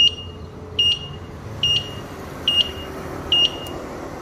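Turn-signal beeper of a Winfly DF7 electric bike sounding with the indicator on: five short, high, really loud beeps, a little under a second apart, stopping shortly before the end.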